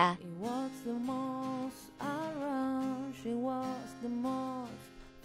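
Background music: a slow melody of long held notes in short phrases over a soft accompaniment.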